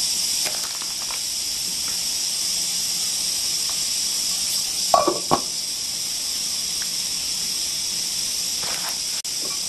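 Steady hiss of steam from a flameless cooker's water-activated heating element reacting under a pot of boiling ramen broth. A couple of short clinks sound about halfway through.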